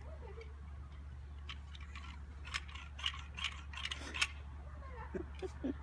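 Faint, scattered light clicks and ticks from handling the tube of roofing sealant and hand tools, about a dozen over a few seconds, over a steady low hum.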